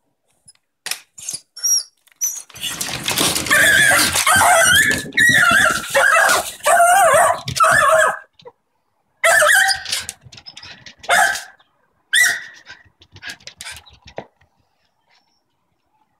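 Jack Russell terrier barking and whining, excited by a cat: a long unbroken run of high, wavering cries, then shorter bursts that die away.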